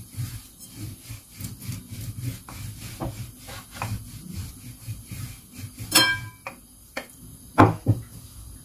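Wooden rolling pin rolled back and forth over a thick stack of oiled, floured dough layers, a steady rhythm of soft rubbing strokes as the layers are pressed together into one thin sheet for samosa pastry. Near the end come two louder knocks, the first with a brief ring.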